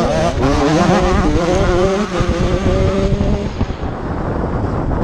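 85cc two-stroke motocross bike engine revving hard under the rider, its pitch wavering and climbing, then held high before falling away about three and a half seconds in. A heavy wind rumble on the onboard microphone runs underneath.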